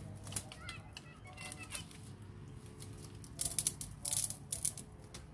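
Dry bamboo leaves and stalks rustling and crackling as a person pushes and climbs through a bamboo thicket, with denser, louder bursts of crackling about three and a half and four and a half seconds in.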